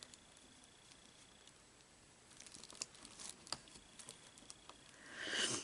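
Faint clicks and rustles of a latch hook tool working cut yarn through the mesh canvas, with a louder brief rustle near the end.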